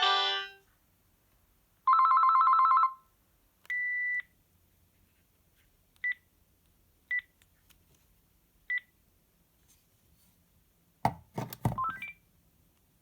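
Panasonic KX-TGC310 cordless phone sounding its tones: a melody ringtone cuts off at the start, then about two seconds in a one-second warbling ring, followed by a longer beep and three short key beeps spaced a second or so apart. Near the end come a few clicks and a quick rising run of beeps.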